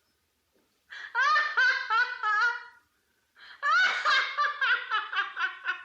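A woman laughing in a silly, high-pitched way: two bouts of rapid, pulsing laughter, the first about a second in and the second after a short pause, each breaking into quick ha-ha syllables.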